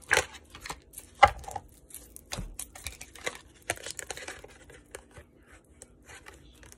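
A deck of tarot cards being shuffled by hand: irregular quick card flicks and slaps, the loudest about a second in.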